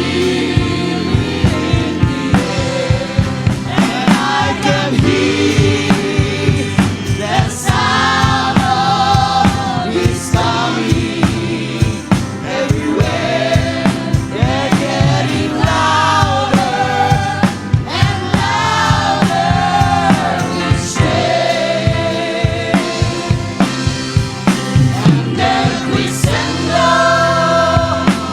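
Choir singing a gospel song over band accompaniment with a steady drum beat.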